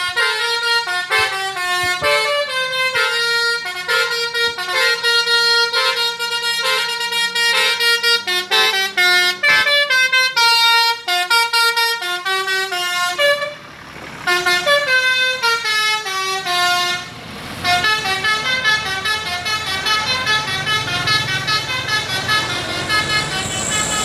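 Bus 'telolet basuri' multi-tone air horn playing a fast tune of short stepped notes, pausing briefly twice partway through and playing quicker notes near the end.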